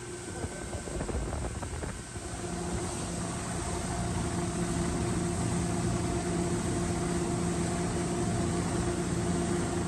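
Bay boat's outboard motor running steadily as the boat moves through the water, with a rush of wind and water; its hum becomes louder and steadier about two seconds in, after a few light knocks.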